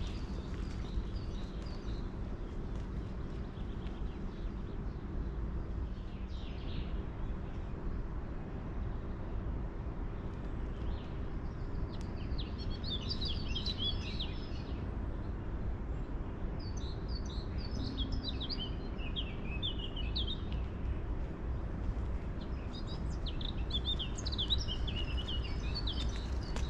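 A songbird singing in bouts of quick, high chirping phrases, three times, about twelve, seventeen and twenty-three seconds in, over a steady low background hum.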